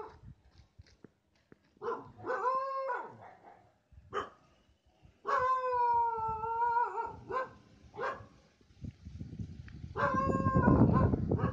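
A dog howling: three long howls, the middle one the longest, with short yelps in between. A low rumble comes in under the last howl.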